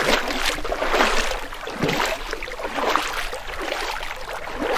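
Paddle strokes swishing and splashing through water, in a steady rhythm of about one stroke a second.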